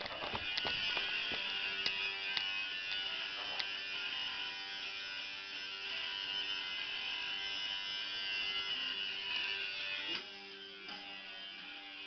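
A steady buzzing noise, like a small electric machine, that cuts off suddenly about ten seconds in. Faint music plays underneath.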